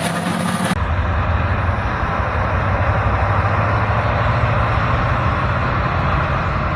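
Heavy diesel engine of a large mining haul truck running steadily, low and loud. Under a second in, the sound changes abruptly to a different engine.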